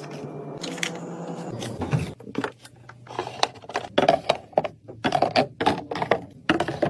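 Items being handled and set into a mini fridge: irregular clicks, taps and knocks, getting busier from about two seconds in.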